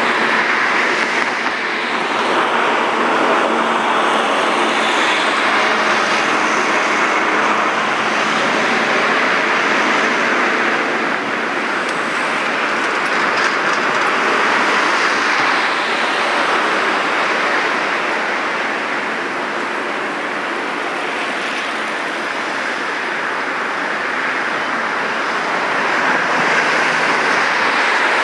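Steady noise of heavy machinery running, with a harsh hiss over it and a faint steady hum underneath; it dips a little in loudness near the middle.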